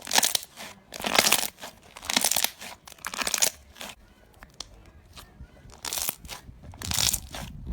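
Slime being pressed and squeezed by hand, giving a series of crisp, noisy crunching bursts about once a second.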